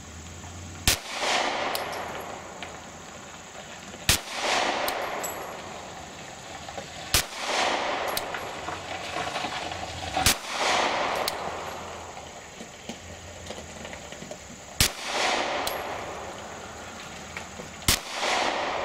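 Glock 43 9mm pistol fired six times, slow single shots about three seconds apart, each followed by a rolling echo.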